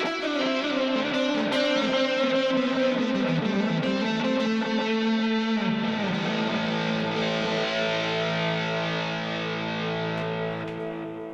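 Electric guitar played through a TC Electronic Flashback X4 delay pedal: a run of notes stepping downward, then a held chord that rings on and fades away near the end.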